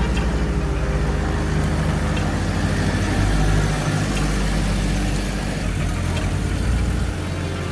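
Car engine running steadily with a low hum and road noise, dropping slightly in level near the end.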